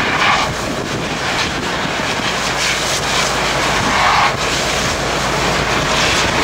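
A steady engine drone under a loud, even rushing noise.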